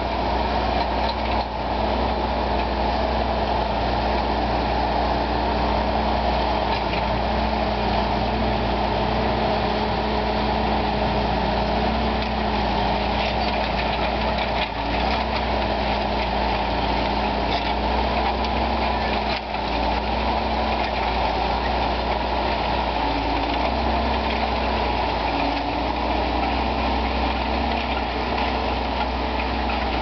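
Fendt 936 tractor's six-cylinder diesel engine running steadily under ploughing load, pulling an eight-furrow reversible plough; a continuous drone with a steady low hum.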